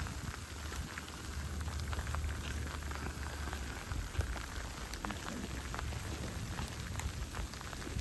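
Snowstorm outdoors: a steady crackling patter with scattered small ticks, over a low rumble of wind on the microphone.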